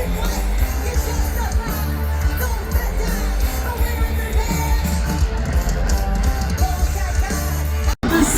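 Rock music with a singer and heavy bass. It cuts off abruptly near the end, and different music starts straight after.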